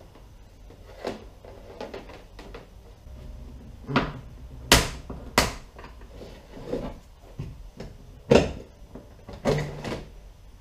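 Hollow plastic knocks and clunks, about half a dozen at irregular intervals, as cable and fishfinder parts are handled and set down on a plastic kayak's deck.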